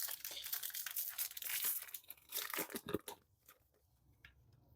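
Foil Pokémon booster pack being torn open and crinkled, a dense crackling for about three seconds, then a few light rustles.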